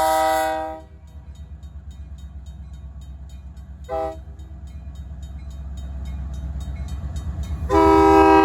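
Locomotive horn sounding for a grade crossing: a long blast ending about a second in, a short toot around four seconds, and another long blast starting near the end. Under it a RACO mechanical crossing bell rings in steady strokes, about four a second, over the low rumble of the locomotive's diesel engine.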